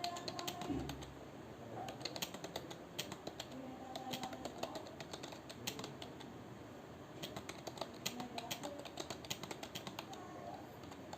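Computer keyboard keys clicking in quick, irregular runs with short pauses, as someone types a timed practice passage.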